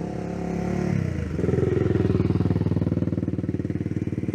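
Small off-road vehicle engines running at low speed as the trail riders pull in. About a second in, a louder, rapidly pulsing engine note takes over.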